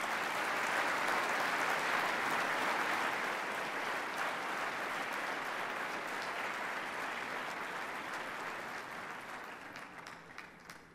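Large audience applauding, swelling in the first second or two and slowly dying away near the end.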